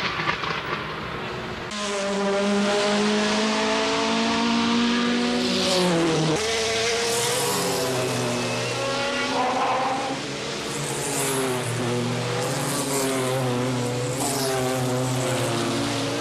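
Group C prototype race car engines at racing speed. The engine notes climb gently, then one car's pitch drops sharply as it passes about six seconds in, and steady engine notes continue after it.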